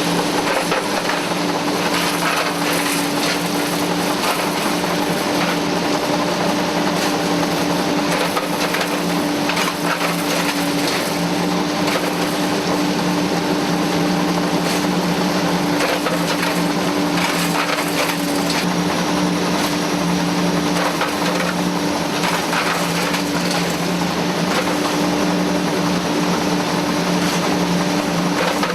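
Heavy machinery running steadily, with a constant hum and a dense rattling and clattering over it.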